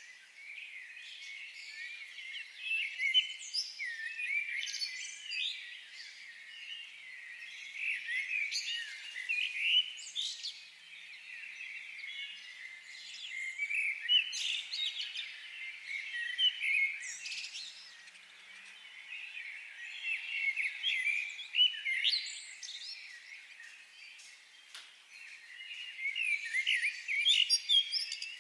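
Several songbirds chirping and singing together in a forest chorus, a dense mix of quick high chirps and whistles that swells and fades every few seconds.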